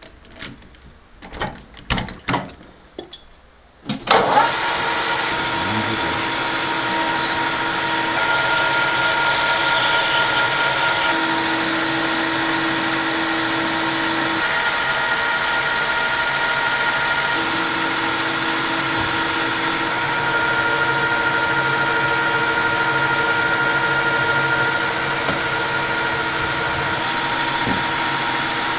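Metal clicks and knocks as a workpiece is clamped in a metal lathe's three-jaw chuck. About four seconds in, the lathe starts and runs steadily with several whining tones while a cutting tool turns the spinning metal part.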